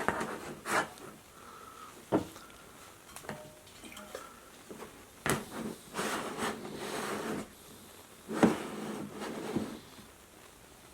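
Handling noise: scattered sharp knocks and clicks, with two longer stretches of rustling about halfway through and near the end.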